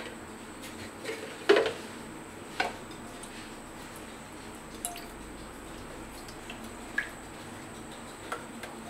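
Cooking oil being poured into an empty nonstick wok, with a couple of short knocks and drips about one and a half and two and a half seconds in, then a few faint ticks over steady low room noise.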